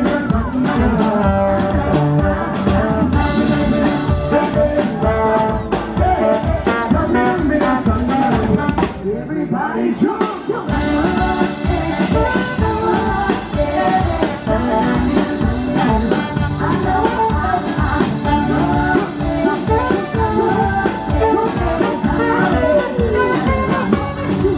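Live band playing upbeat music: horns and singing over a steady drumbeat, with the drums and bass briefly dropping out about nine seconds in.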